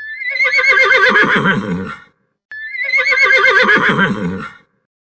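A horse whinnying twice: the same long, wavering whinny, about two seconds each time, repeated after a short pause.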